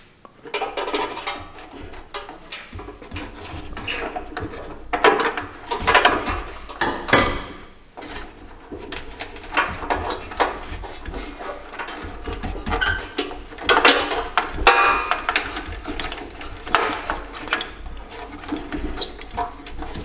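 Irregular clattering, scraping and clicking of metal parts being worked inside an Attwood RV furnace's sheet-metal case as a bracket is pried out.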